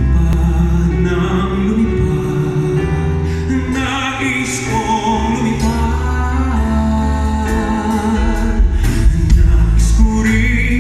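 A singer's held, wavering vocal lines over band music with a strong bass, and drum beats coming in about three-quarters of the way through.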